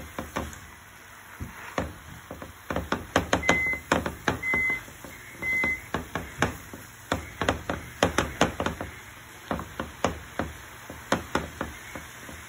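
Wooden spatula knocking and scraping against a frying pan as Swiss chard is stirred, a run of irregular clacks. About a third of the way in, three short electronic beeps sound a second apart.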